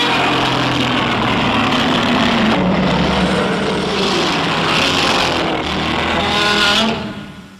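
Custom-edited Godzilla Ultima roar sound effect: one long, harsh, rumbling roar lasting about seven seconds, fading out near the end.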